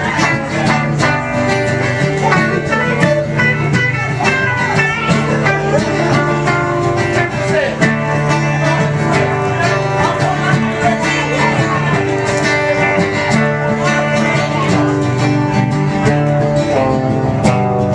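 A live band playing music with plucked string instruments, a busy stream of picked notes over sustained chords with no pause.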